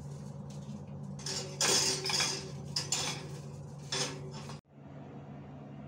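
Kitchen cookware and utensils clattering and scraping in three short spells over a steady low hum; it all cuts off sharply about four and a half seconds in, leaving a faint steady hiss.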